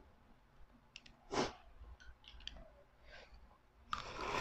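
Quiet eating sounds: a few faint clicks of utensils, a short breathy rush about a second and a half in, then a loud slurp of ramen noodles near the end.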